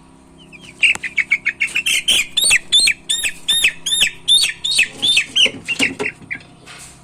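A roughly 20-day-old broiler chick peeping loudly in a fast, unbroken run of high chirps as it is caught and held by hand for weighing; the calls start about a second in and stop about a second before the end.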